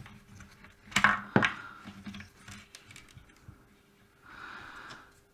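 Handling noise as a small circuit board and its wiring are lifted out of a cordless reciprocating saw's plastic housing: two sharp plastic knocks about a second in, a few small clicks, then a brief rustle near the end.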